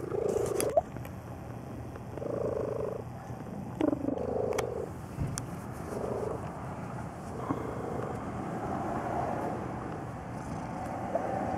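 Domestic cat purring very loudly close by, the purr swelling and fading in a slow, even in-and-out cycle every second or two. A few small clicks or rustles are heard over it, the sharpest about four seconds in.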